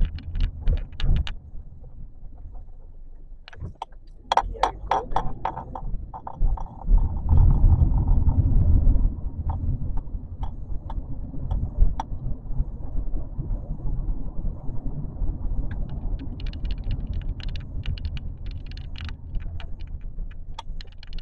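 Road and engine noise inside the cabin of a 2019 Volkswagen Beetle Turbo while driving, a steady low rumble that grows louder for a couple of seconds about seven seconds in. Scattered light clicks and rattles come and go.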